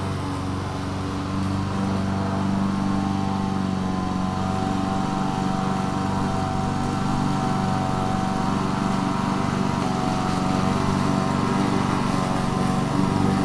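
Petrol lawn mower engine running steadily under load while cutting grass, gradually growing a little louder.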